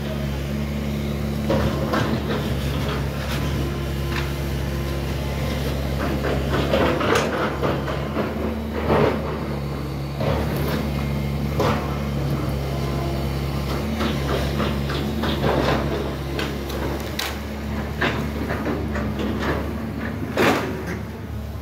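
Tracked hydraulic excavator's diesel engine running steadily while its grapple claw works a pile of brick and timber demolition debris. Irregular clanks and knocks of bricks and wood being moved sound over the engine hum.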